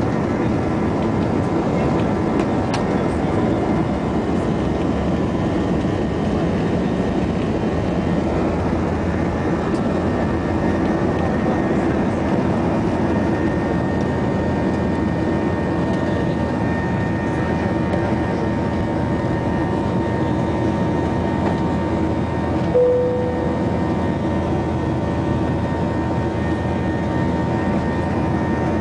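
Jet airliner engines at takeoff thrust heard from inside the passenger cabin: a steady loud rush with thin steady whining tones, through the takeoff roll and into the climb. A brief short tone sounds about three-quarters of the way in.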